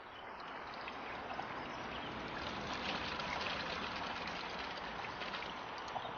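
River water flowing steadily, with a few small splashes.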